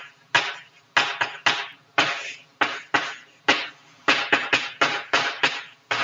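Chalk tapping and scraping on a blackboard while a formula is written, a quick, irregular run of sharp strokes, about two to three a second, each fading quickly.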